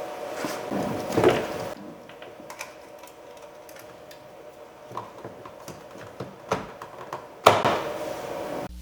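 Scattered clicks and taps of a screwdriver and plastic trim being worked on a car's rear door panel, with two louder noisy bursts of handling, one in the first second or two and one near the end.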